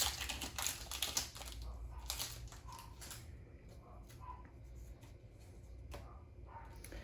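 Trading cards being handled and flicked through, a quick run of small clicks and rustles that thins out to a few soft ticks after about three seconds.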